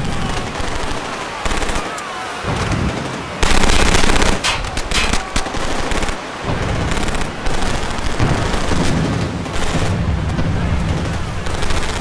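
Rapid gunfire like machine-gun bursts, loudest about three and a half to five seconds in.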